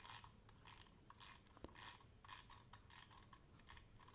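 Plastic wind-up fish toy running, its clockwork mechanism making a faint rhythmic rasping of about two strokes a second.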